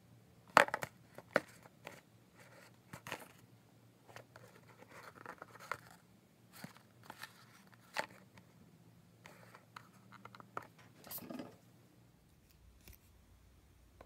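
A small cardboard box being handled and turned over by hand: scattered taps, clicks and scrapes of fingers and the box's edges. The loudest is a sharp knock about half a second in, and there is a longer rustling scrape about eleven seconds in.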